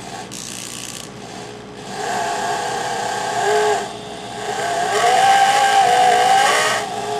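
Cordless drill running slowly in reverse, its drill-out extractor bit cutting into a broken exhaust manifold stud in the cylinder head. The motor whines in two runs, one starting about two seconds in and a louder one from about four and a half seconds, its pitch wavering under load.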